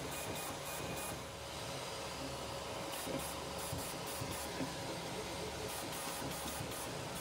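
FLSun Super Racer delta 3D printer printing: a steady fan hiss and faint hum, with the stepper motors' high whine coming and going several times as the print head moves.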